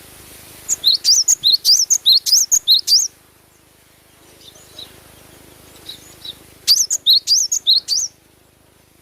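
Cinereous tit (glatik batu) singing: two bursts of fast, repeated high chirping notes, the first about two and a half seconds long and the second shorter, with a few faint notes between them.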